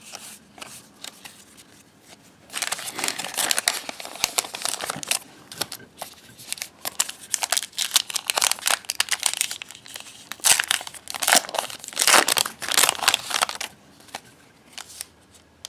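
Trading-card pack wrapper being torn open and crumpled by hand, a dense run of crinkling that starts a couple of seconds in and dies away near the end.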